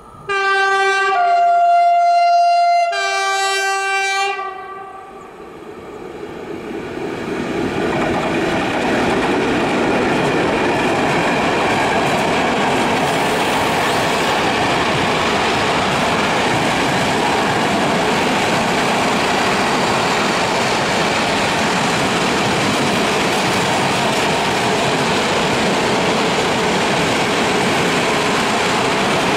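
ET41 electric locomotive's horn sounding for about four seconds, a lower tone, then a higher one, then the lower again, as the locomotive approaches. Then a long freight train of open coal wagons rolls steadily past, its wheels running over the rails without a break.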